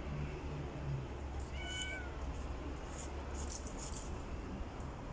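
A kitten mewing once, a short high-pitched cry about one and a half seconds in.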